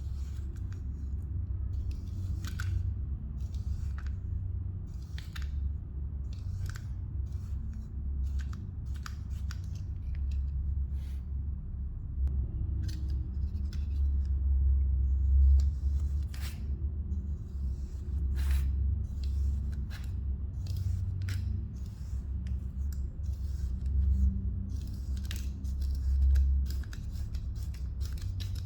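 Kinetic sand being cut, a string of short, crisp crunches at an irregular pace, about one or two a second, over a steady low hum.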